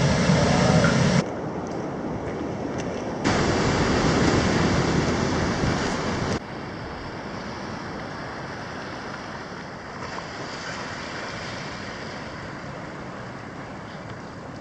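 Ocean surf washing against a rocky shore, with wind on the microphone. It jumps abruptly in level a few times, louder in the first half and a steadier, quieter wash in the second half.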